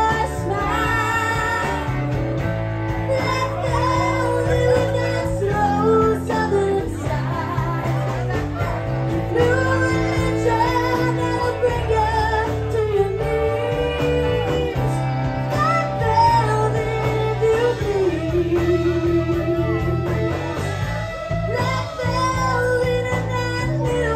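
Live country band playing in a bar: fiddle, electric guitars, bass and drums, with singing over the music.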